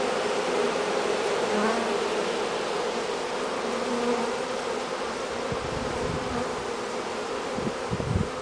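Honeybees of a freshly installed package colony, about 10,000 bees, buzzing at the hive entrance: a steady, even hum. A few low thumps come in the last few seconds.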